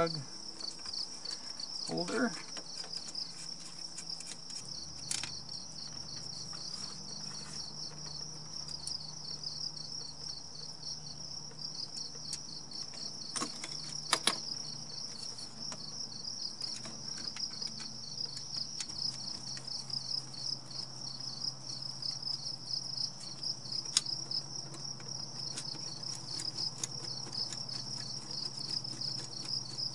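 Insects trilling steadily in a fast, high pulsing chorus, broken by a few sharp clicks of hand tools on engine parts.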